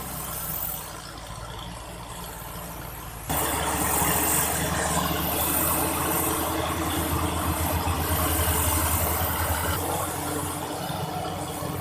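Heavy machinery engines running steadily. About three seconds in, the sound cuts abruptly to a louder machine running, with a low pulsing rumble and some rattle.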